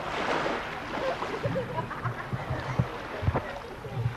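Pebble-beach ambience: a wave washing up the shingle in a swelling hiss at the start, with indistinct voices and occasional small clicks.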